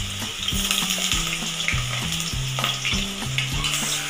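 Cubed potatoes sizzling in hot mustard oil in a metal kadai, stirred with small clicks against the pan. Low notes that change every half second or so run underneath.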